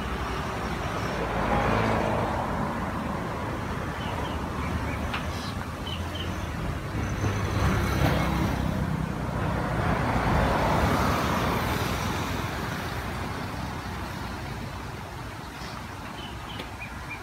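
Road traffic going by: vehicles swell past and fade away several times over a steady rumble.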